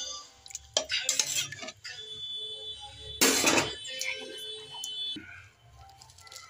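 Metal ladle clinking and scraping against an aluminium cooking pot, with sharp clicks about a second in and a louder noisy scrape about three seconds in.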